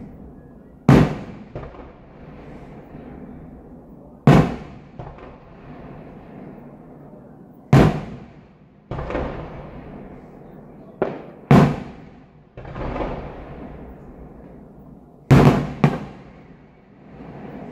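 Aerial fireworks shells bursting overhead: sharp bangs every two to four seconds, some in quick pairs, each followed by a rolling echo over a steady rumble.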